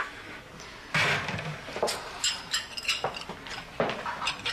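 China coffee cup, saucer and teaspoon clinking together, a handful of sharp clinks and light knocks spread over a few seconds.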